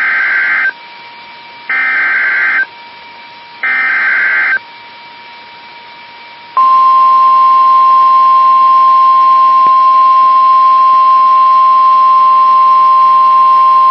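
Emergency Alert System signal on NOAA Weather Radio. First come three short bursts of buzzy SAME header data, each under a second long and about two seconds apart. About six and a half seconds in, the long steady 1050 Hz weather-radio alert tone starts, announcing a severe thunderstorm warning.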